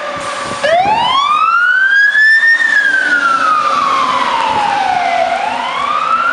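Fire truck siren wailing as an older International pumper passes. About a second in, its pitch sweeps up quickly from low to high, falls slowly over the next few seconds, and starts rising again near the end.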